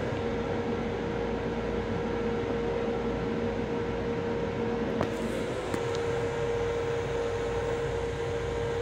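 Steady interior hum of an LIRR M7 electric railcar heard inside its restroom: an even rush of ventilation and running noise with one constant mid-pitched tone, and a couple of small clicks about halfway through.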